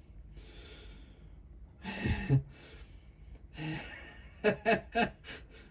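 A man sighing and breathing out, with a louder voiced exhale about two seconds in, then a short run of four quick voiced bursts near the end, a brief chuckle.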